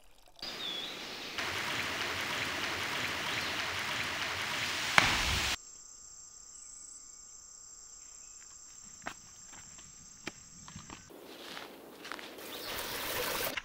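Outdoor sounds joined by hard cuts. First comes a loud, even rushing noise for about five seconds. Then a steady high insect buzz with a few sharp clicks, and near the end a rising rush of noise.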